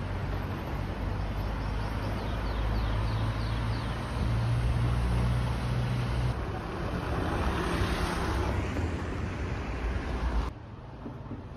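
Steady rushing noise of a moving vehicle with a low hum underneath, mixed with wind. It cuts off abruptly about ten and a half seconds in, leaving a quieter hiss.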